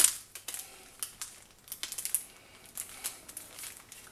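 Cellophane-wrapped card coin packs being flicked through and handled with gloved fingers: scattered light clicks and crinkles of the plastic sleeves, with one sharper click at the very start.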